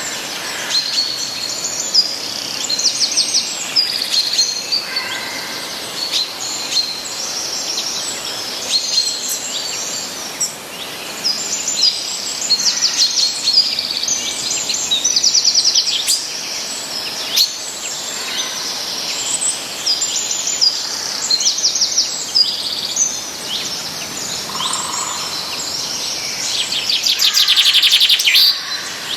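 Several songbirds chirping and singing at once, with many short calls and quick trills overlapping over a steady faint hiss; the loudest rapid trill comes near the end.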